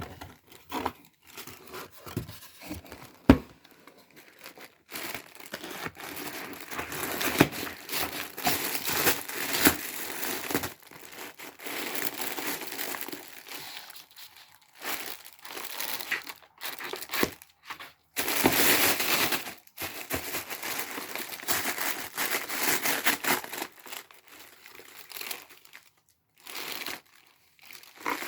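Packaging crinkling and rustling in long irregular bursts as a box is unpacked, with a few sharp knocks in the first few seconds.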